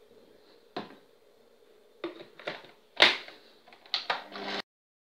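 Sharp plastic clicks and knocks as the blender's lid cap is put back and the jug and base are handled, the loudest about three seconds in. Near the end a short low hum sets in and stops abruptly.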